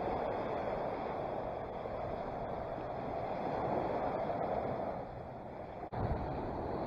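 Small waves breaking and washing up on a sandy beach: a steady rush of surf. It breaks off briefly about six seconds in, then wind buffets the microphone.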